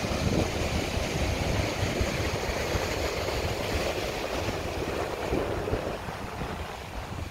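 Ocean surf breaking and washing over a rocky shoreline, a steady roar, with wind buffeting the microphone as a low rumble. It eases off slightly near the end.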